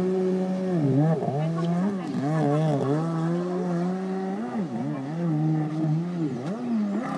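Kawasaki 750 SX stand-up jet ski's two-stroke twin engine running at a steady high pitch. Several times its pitch drops sharply and climbs back, about a second in, around three seconds, around five seconds and near the end, as the revs fall and pick up again.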